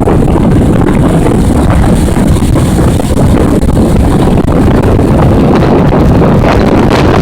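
Strong gusty wind buffeting the microphone: a loud, steady low rumble.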